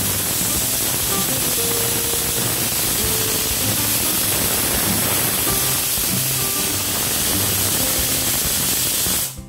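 Pressure cooker's weighted whistle valve venting steam in a loud, steady hiss, cutting off suddenly near the end. This is the cooker's whistle, the one whistle that tells the rice and soya biryani inside is cooked.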